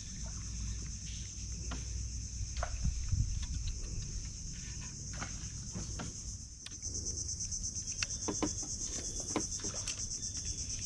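Steady, high-pitched buzzing of insects in the mangroves, turning into a faster, louder even pulsing a little past halfway, with a few faint clicks over it.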